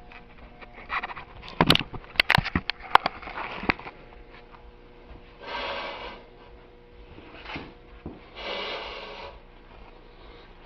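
Handling noise of a heavy homemade steel anvil being set onto a scale: a cluster of sharp knocks and clicks about two to four seconds in, then two long rushing breaths of exertion around six and nine seconds.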